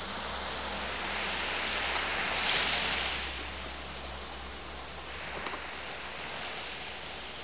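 Sea waves breaking on a beach: a steady wash of surf that swells to a peak about two and a half seconds in and then eases back.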